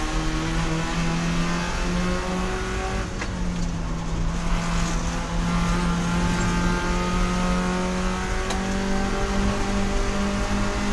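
Spec Miata race car's four-cylinder engine running hard at racing speed. Its pitch holds mostly steady, dips briefly about two seconds in, and climbs higher near the end.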